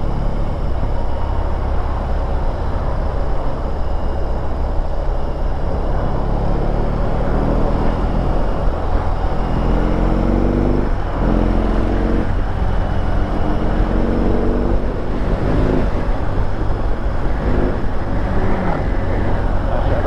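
BMW R18's big boxer twin engine running at low speed in traffic, pulling up through the revs twice in the middle, with a short break between the two rises.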